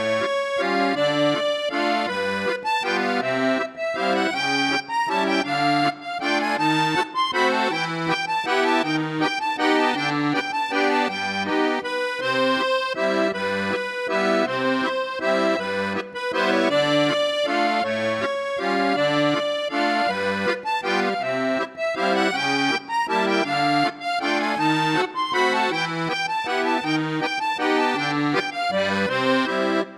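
Instrumental background music led by an accordion, a flowing melody over a steady, evenly repeating bass-and-chord accompaniment.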